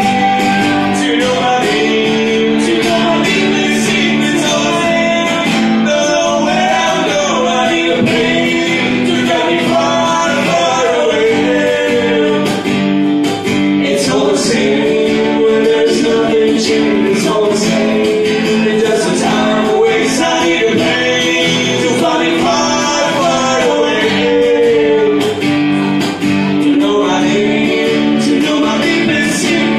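Live acoustic music: an acoustic guitar plays chords under a continuous lead melody that bends up and down.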